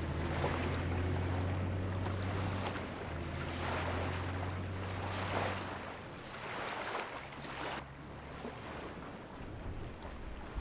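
Outdoor wind ambience: a rushing noise that swells and fades every second or two, over a low steady hum that stops about six seconds in.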